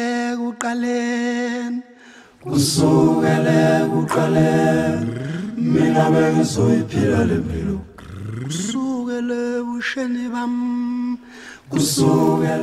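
Unaccompanied singing: voices hold long sung notes, and in the middle several voices layer together with sliding pitches. There are short breaks about two seconds in and near the end.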